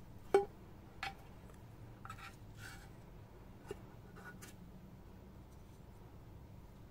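Plastic spoon clinking and scraping against a stainless steel tub: a sharp clink with a brief ring about a third of a second in, a lighter tap about a second in, then a few short scrapes and one more tap.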